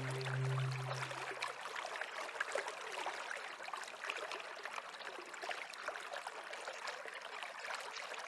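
A small stream running, a steady wash of water with many small splashes. Low held music tones fade out during the first second and a half.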